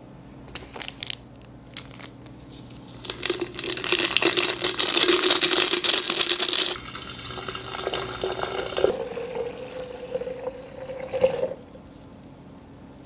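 A sachet of flower food crinkled and torn open, its powder shaken into a glass vase, then water poured into the vase. The pour carries a tone that climbs as the vase fills, and it stops about eleven and a half seconds in.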